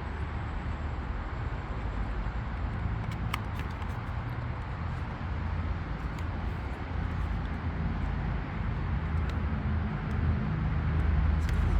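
Steady low mechanical rumble with a couple of faint clicks.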